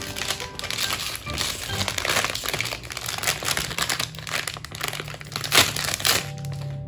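Crinkling of a blind box's sealed plastic inner bag as it is torn and pulled open by hand, with one sharper, louder crackle about five and a half seconds in.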